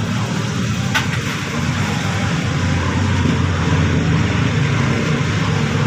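Motorcycle engine running steadily, with a single click about a second in.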